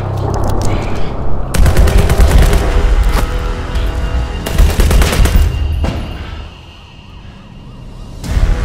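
Automatic gunfire sound effects in a film soundtrack: rapid bursts of shots for about four seconds, with music underneath, dying away about six seconds in before a loud new hit near the end.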